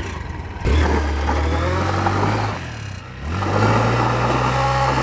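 Motorcycle engine running, with its revs raised sharply about a second in, let down near the middle, and raised again.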